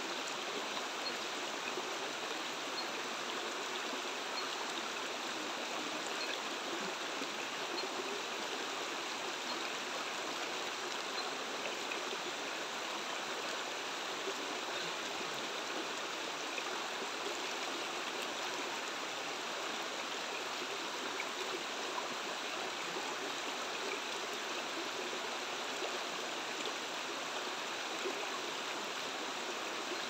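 Shallow rocky stream flowing and trickling over stones, a steady, even rush of water.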